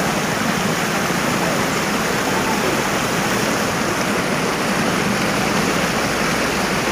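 Steady rush of floodwater running across a road, with a school bus wading through it and pushing up a bow wave.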